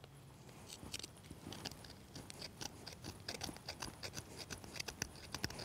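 Mora bushcraft knife blade scraping and shaving slivers off a resinous fatwood stick: a quick, irregular run of short, faint scrapes and crackles.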